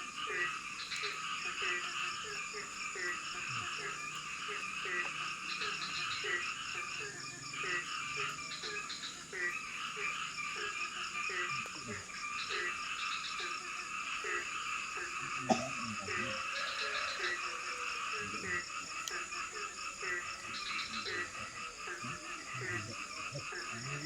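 Frogs calling in a chorus: short croaks repeat about twice a second over a dense, steady layer of higher pulsing calls. A single sharp click comes about fifteen seconds in.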